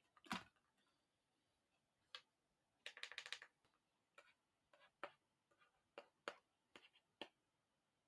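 Faint handwriting: short scattered ticks of strokes and lifts on the page, with a quick run of scratchy strokes about three seconds in.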